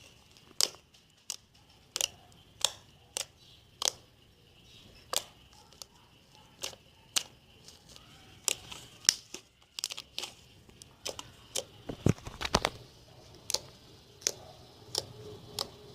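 Fluffy slime made with white glue and shaving foam being squeezed and worked by hand, giving a string of sharp little pops and clicks about every half second, with a duller thump about twelve seconds in.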